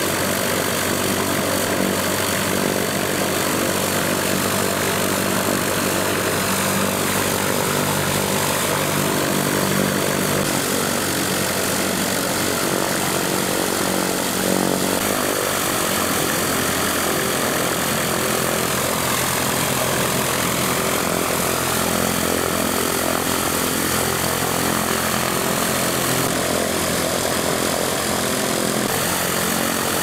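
Piper Cherokee light aircraft's piston engine and propeller running at low taxi power, a steady drone whose pitch shifts slightly about halfway through.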